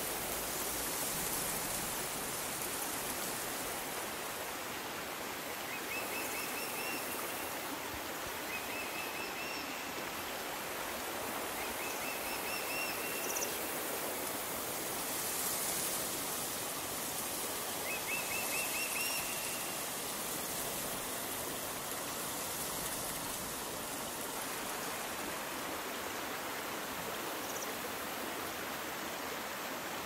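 Small mountain waterfall and stream rushing steadily. A bird sings a short trilled phrase several times over it.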